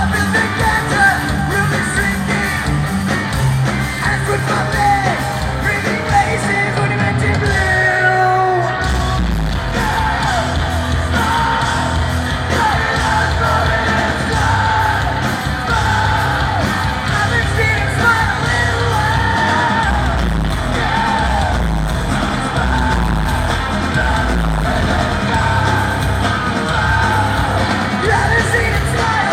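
Live rock band playing at full volume with a singer singing and yelling over guitars and drums. The band breaks off briefly about eight seconds in, then comes back in with a heavier low end.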